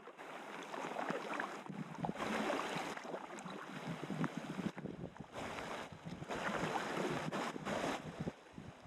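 Water splashing and swishing in uneven surges around a packraft being paddled on a river.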